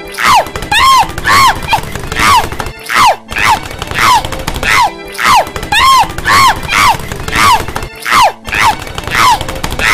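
A cartoon woman's voice crying out in short yelps, one every half second or so, as she tumbles down a staircase, in a repeating loop.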